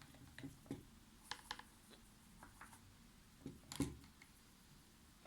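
Faint taps, clicks and light scraping of a paintbrush working gouache paint in jars and on a palette while blue is being mixed, with one louder knock near the end.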